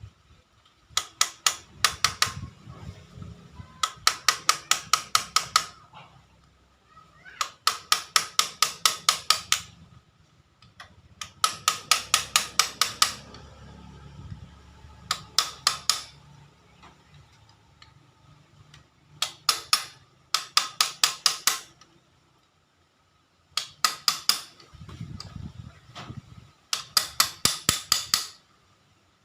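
Rapid hammer blows in repeated bursts of about five to ten sharp strikes, roughly five a second, with short pauses between bursts.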